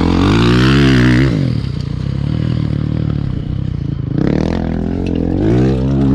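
Small motorcycle engine revving, its pitch rising and falling in two surges, one at the start and one again from about four seconds in, with lower steady engine running in between.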